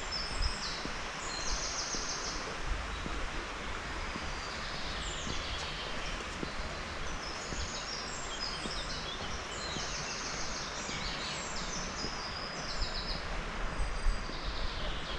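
Small songbirds singing quick, high trilled phrases, over and over, above a steady outdoor hiss.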